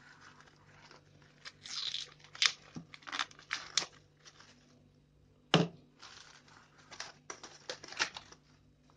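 Plastic cling film crinkling and rustling in irregular bursts as it is pulled and pressed around the rim of an aluminium baking tin, with one sharp click a little past halfway.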